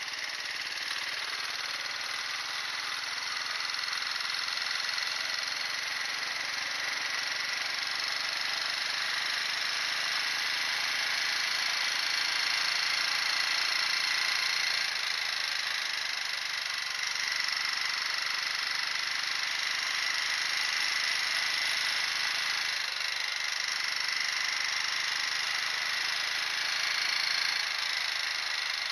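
Motorcycle engine running steadily under a constant rushing hiss, its low hum shifting in pitch a few times.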